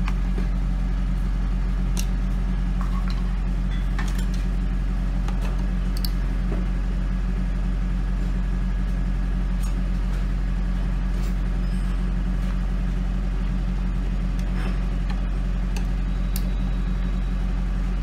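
A steady low hum with occasional faint clicks as the plastic radio-control transmitter case is handled and the screws of its back cover are undone with a screwdriver.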